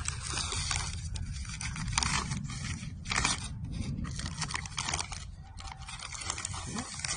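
Brown paper shipping bag crinkling and rustling in irregular bursts as it is handled and opened, over a low steady rumble.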